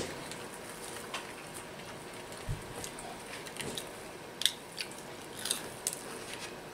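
Quiet eating sounds at a table: scattered small clicks and smacks as fried breaded meat is picked up, dipped and chewed, with more of them in the second half, and a low bump about two and a half seconds in.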